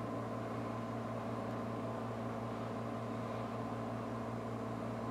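Commercial espresso machine's pump running with a steady hum while a double shot brews.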